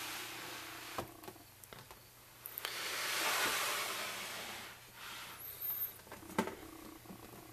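Clear plastic snake tub being pulled out of a melamine rack: a few knocks, then the plastic scraping along the shelf for about two seconds, and a sharp knock near the end.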